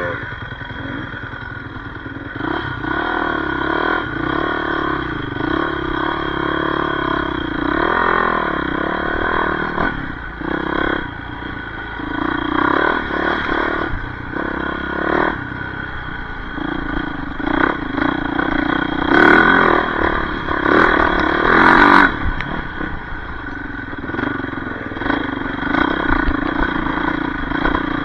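Yamaha YZ450F single-cylinder four-stroke dirt bike engine running off-road, its revs rising and falling as the throttle is worked. Knocks and rattles come from the ride over rough ground, and a few sharp, loud bursts of noise come about two-thirds of the way through.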